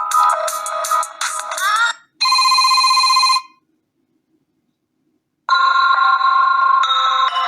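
Preset ringtones of a BQ-5702 Spring smartphone. A fast electronic ringtone ends about two seconds in with a couple of rising glides. A single held tone follows for about a second, and after a gap of silence a new ringtone of steady bell-like notes starts near the end.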